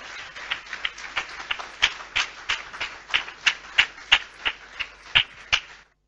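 Church congregation clapping, a haze of many hands with sharp claps standing out in a steady rhythm of about three a second; it cuts off suddenly near the end.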